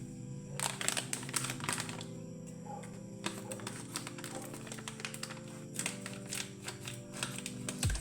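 Background music with sustained chords, overlaid by clusters of quick, sharp clicks and taps, like typing.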